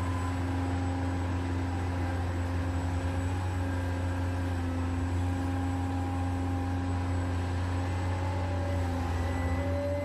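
Huina 1580 RC excavator's electric motors running steadily as its arm and bucket move, a constant low hum under thinner whine tones that shift pitch a few times.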